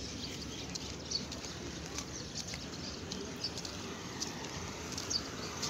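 Steady background noise with a few faint, short, high bird chirps scattered through it.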